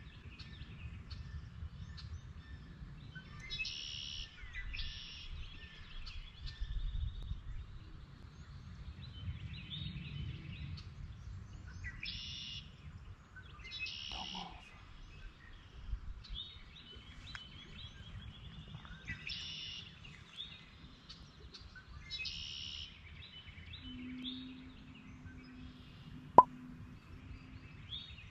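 Songbirds singing in spring woodland: short, high, repeated songs every few seconds with a couple of trills, over a low rumble. A single sharp click comes near the end.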